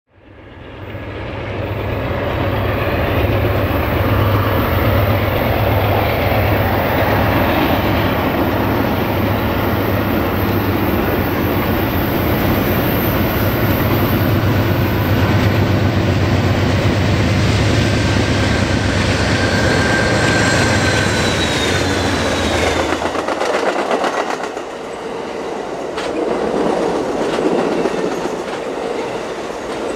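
Amtrak California Zephyr passenger train passing close by: the diesel locomotive's engine drone fades in at the start and stays loudest until about three quarters of the way through, when it falls away. The bilevel passenger cars then roll past with a lighter clatter of wheels over the rails, and a thin wheel squeal sounds briefly on the curve shortly before the locomotive has gone by.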